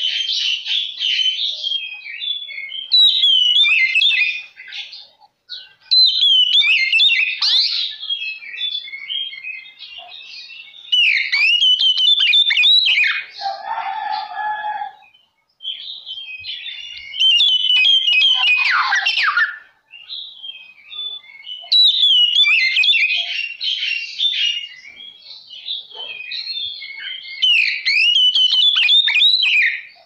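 Oriental magpie-robin (kacer) in full song: loud, fast phrases of varied whistles and trills separated by short pauses, with a lower, harsher note about midway. This is the song played to provoke other magpie-robins into singing back.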